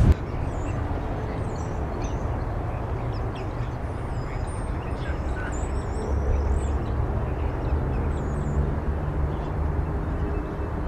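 Several birds calling: short high chirps and squeaky whistled glides, busiest through the middle of the stretch, over a steady low rumble.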